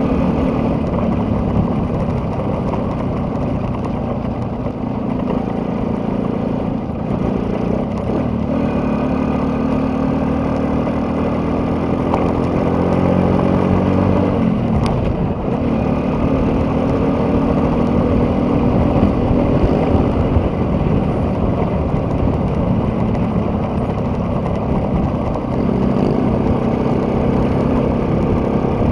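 Motor vehicle engine running steadily while travelling. Its pitch climbs and then drops about halfway through, with one sharp click.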